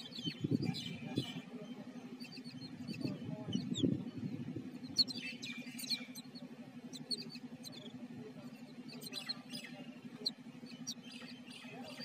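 Babblers giving short, high chirping calls in scattered clusters over a steady low hum.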